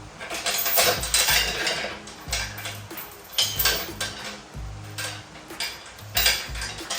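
Repeated metallic clanks, clinks and rattles of body-shop pulling gear and tools being worked during an overhead pull on a car body, over background music with a repeating bass line.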